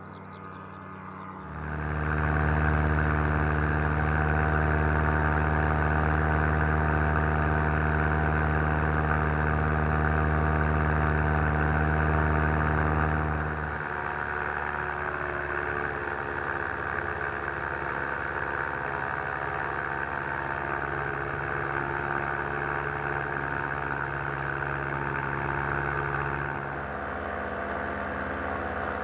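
An engine running at a steady speed. It is loud for the first part, then about halfway through it drops in level and the pitch pattern changes, and it changes again near the end.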